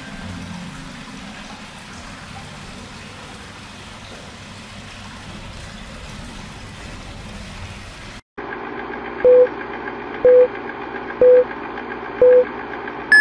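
A faint steady hiss, then, after a brief dropout about eight seconds in, a film-countdown leader effect: four short beeps about a second apart over a steady background.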